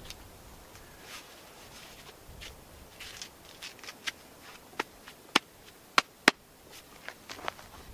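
Work gloves being pulled onto the hands: soft rustling and scuffing of the glove material, with a few sharp snaps or slaps about two-thirds of the way through as the gloves are tugged into place.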